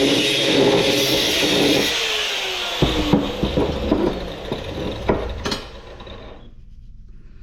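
A power tool runs with a steady whine, is let off about two seconds in and winds down, falling in pitch, while a string of sharp knocks and clanks follows. All goes quiet about six seconds in.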